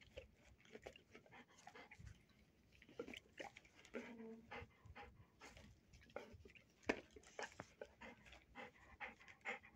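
Large dog panting softly, with a short whine about four seconds in and scattered small clicks.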